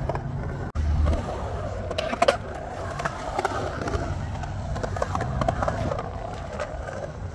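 Skateboard wheels rolling on a smooth concrete bowl: a steady low rumble broken by scattered sharp clicks from the board.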